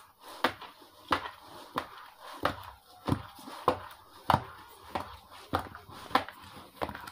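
A hand mixing flour in a plastic bowl for raqaq dough: rustling and scraping, with a regular knock about one and a half times a second as the hand strikes the bowl with each stroke.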